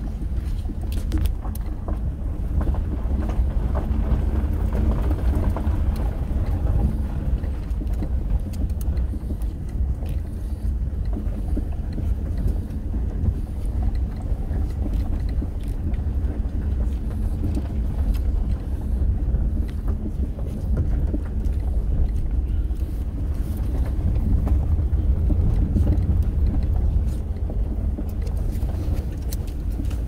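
A car driving down a rough gravel road, heard from inside the cabin. There is a steady low rumble of tyres and engine, with frequent small knocks and clicks from stones under the car.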